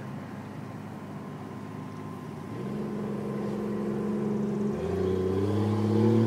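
Jeep engines driving past slowly in a line. One engine comes in about two and a half seconds in. A second, louder one joins about five seconds in, its pitch bending slightly up and down as it draws closer.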